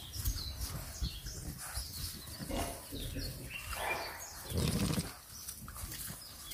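English bulldog puppies playing close to the microphone, making short, irregular snorting and grunting noises; the loudest comes about four and a half seconds in.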